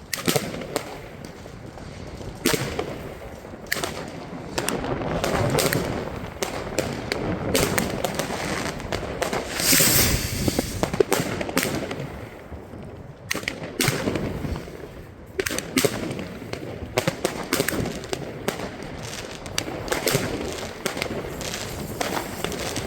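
Fireworks going off: a dense, irregular run of bangs and crackles, with a longer hissing burst near the middle.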